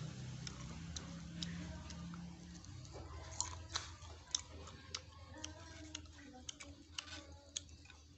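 Close-up chewing of fried caterpillar pupae: scattered sharp mouth clicks and smacks at irregular intervals, over a low hum for the first two seconds or so.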